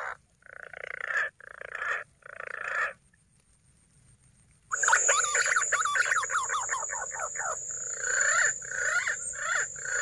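Punai (green pigeon) calls: three separate swelling notes, a short pause, then a long fast run of wavering notes that ends in a few swelling ones. A steady high-pitched tone comes in with the long run.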